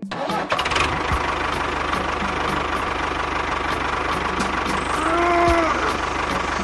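A small engine starts up and runs steadily with a fast, even beat. About five seconds in, a brief tone that rises and falls sounds over it.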